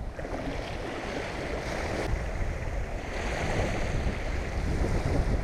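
Surf washing onto the beach, a steady rushing, with wind buffeting the microphone.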